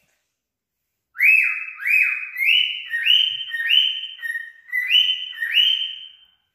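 Male cockatiel whistling at its reflection in a mirror: a rapid run of loud whistled notes, about two a second, each swooping up and holding, starting about a second in. The owner takes it for the bird courting what it thinks is another cockatiel.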